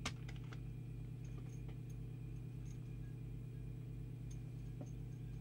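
Steady low electrical mains hum from powered bench equipment, with a few light clicks and taps of small parts being handled, the sharpest right at the start.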